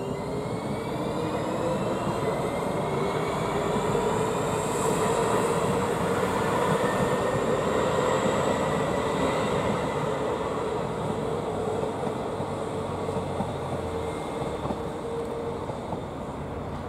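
Rotterdam RET metro train pulling out and passing close by: its traction motors whine, rising in pitch over the first few seconds and then holding steady, over the rumble of wheels on the track. It is loudest about halfway through.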